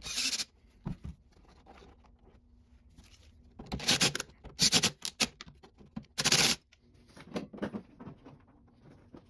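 Hands working wiring and plastic inside a lawn mower housing: fainter rustling and scratching, broken by four short, loud scrapes.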